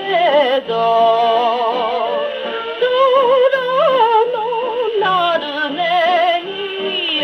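A 1949 Japanese popular song playing from a 78 rpm record on a Columbia G-241 portable wind-up gramophone with an acoustic soundbox. A melody line with vibrato sounds over the accompaniment.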